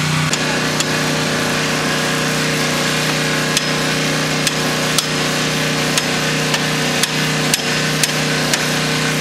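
Hammer blows on a wooden utility pole: two strikes at the start, then a run of sharp strikes about two a second from a few seconds in. Under them the bucket truck's engine hums steadily.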